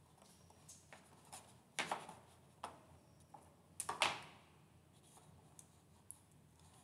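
Handling noise: a few sharp clicks and knocks, the loudest two about two seconds in and about four seconds in, with fainter ticks between.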